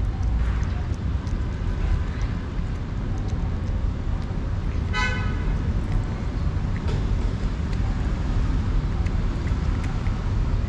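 Steady low rumble of road traffic, with one brief vehicle horn toot about five seconds in. Faint small clicks run throughout, the cat chewing wet food.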